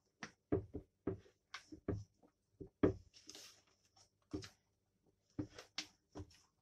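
Silicone spatula slowly folding whipped egg whites into cake batter in a glass bowl: a string of short, irregular scrapes and taps against the glass, about a dozen in all.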